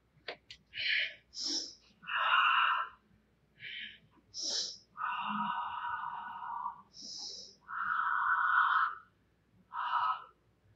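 Forceful hissing breaths from a karate practitioner working through a form: about ten separate exhales, most short, two of them drawn out over a second.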